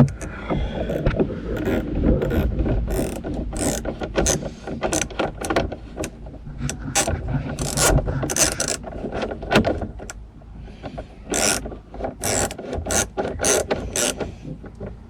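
Hand socket ratchet with an extension clicking in short, irregular runs as it tightens the pegs that hold a car's rear tail light assembly.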